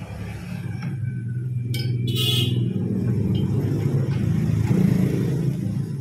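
A low motor rumble that grows louder toward the end, with a short, bright metallic rattle about two seconds in.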